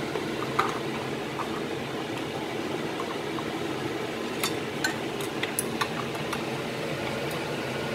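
Steady fan-like hum, with a sharp click about half a second in and a run of light clicks and taps in the second half from chopsticks against a frying pan as minced garlic is stirred in oil not yet hot enough to sizzle.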